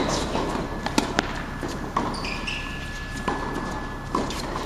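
Tennis rally on an indoor hard court: sharp racket strikes on the ball and ball bounces about once a second, echoing in a large hall.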